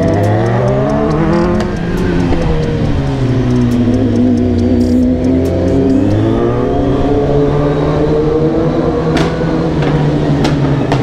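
Sport motorcycle engines revving hard in a road underpass, climbing and falling in pitch as the throttle is worked, with a brief dip about two seconds in.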